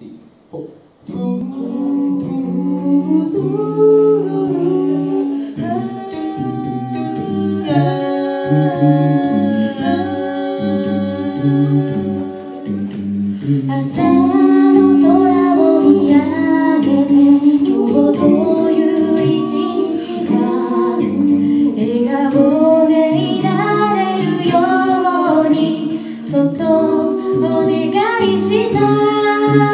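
Mixed four-voice a cappella group singing a song through microphones, male and female voices in harmony with no instruments. The singing starts about a second in and gets louder from about 14 seconds in.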